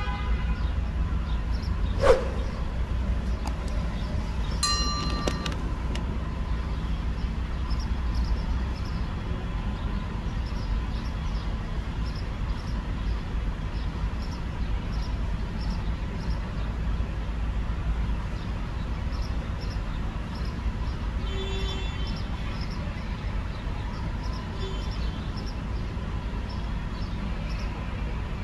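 Ford E150 van's engine running steadily, a low rumble heard from inside the cab. A single sharp click comes about two seconds in.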